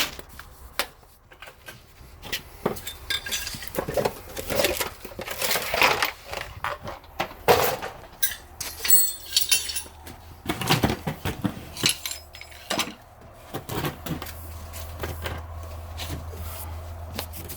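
Metal tools and parts clinking and clattering as they are handled, with many scattered sharp clanks and knocks.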